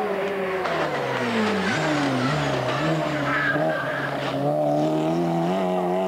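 Rally car engine at high revs. Its pitch falls as the car brakes into the bend, jumps up sharply about two seconds in on a downshift, then holds and climbs again as the car accelerates out of the corner.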